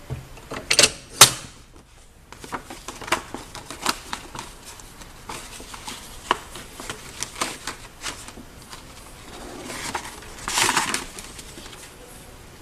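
Clicks, knocks and clatter of a manual glue binding machine's metal clamp bar and handle being worked while a paper cover sheet is positioned under it. Two sharp knocks come about a second in, then lighter ticks, and a longer rustling scrape lasts about a second toward the end.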